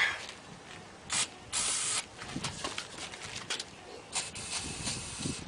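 Aerosol can of carburetor cleaner spraying in short bursts into the gap between a tire bead and its rim: a brief spurt about a second in, then a stronger half-second spray, then fainter spurts with small clicks.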